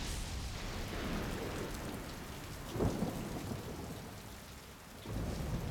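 Steady heavy rain with thunder rumbling under it. A sharp thunderclap comes about three seconds in, and the thunder swells again near the end.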